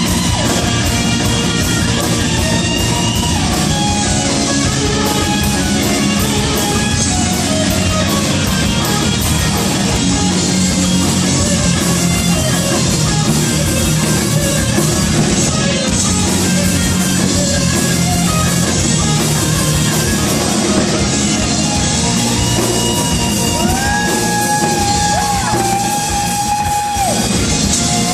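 Live rock-style band music played loud in a hall, with guitar; a couple of notes are held out about three-quarters of the way through.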